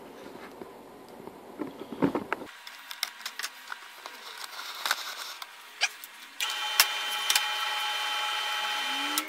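Light clicks and knocks of handling, then a drill press starts up about six seconds in and runs with a steady, even whine for about three seconds before cutting off abruptly.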